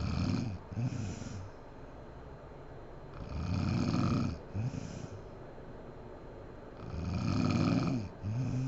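A sleeping woman snoring, about every three and a half seconds. Each snore is a longer pull followed by a short second one.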